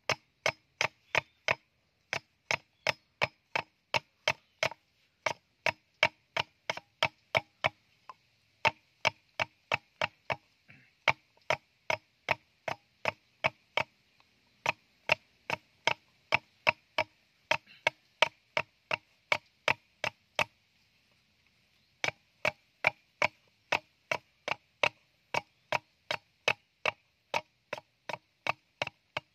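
Machete blade chopping at a section of bamboo being carved into a cup: quick, even knocks, about three a second, each with the same ringing note. The knocking pauses briefly about twenty-one seconds in, then carries on.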